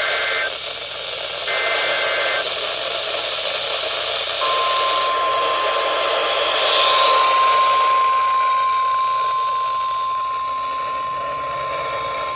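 Weather radio receiving an Emergency Alert System activation over static hiss. In the first two seconds or so come two short bursts of the SAME data header's two-tone digital warble. About four seconds in, the NOAA Weather Radio warning alarm tone begins: one long steady beep that signals a warning is about to be read.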